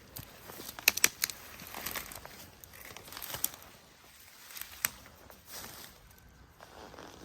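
Footsteps through dry forest litter and brush, with rustling and a few sharp snaps and crackles, the loudest about a second in.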